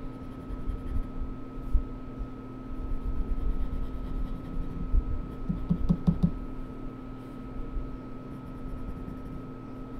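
Colored pencil scratching on sketchbook paper in short shading strokes, over a steady background hum. A little past halfway, a quick run of about five soft taps.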